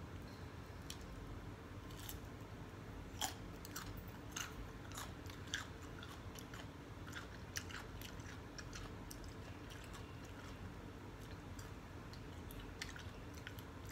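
Close-up crunching and chewing of raw cucumber, with crisp bites and chews. They come thickly from about three seconds in to nine seconds in, with a few more near the end.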